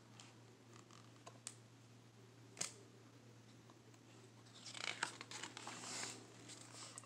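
A page of a hardcover picture book being turned by hand: a soft papery rustle with a few light clicks, starting about two thirds of the way in. Before that, near silence with a couple of faint taps.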